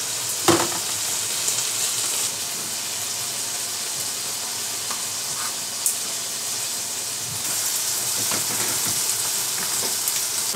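Meat sizzling steadily in a frying pan on low heat, with a few light clicks of a spoon against a pot and plastic container.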